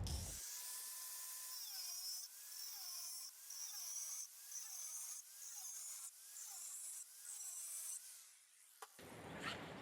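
Rhythmic rasping strokes of a tool working wood, about one every 0.8 seconds, thin and hissy with the low end cut away; they stop with a click near the end.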